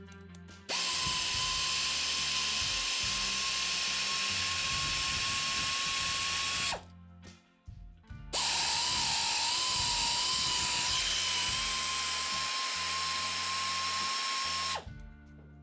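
Pneumatic air ratchet running in two long runs of about six seconds each, with a short pause between, spinning out rocker box bolts that were already broken loose by hand. It gives a steady air hiss with a whine whose pitch wavers during the second run.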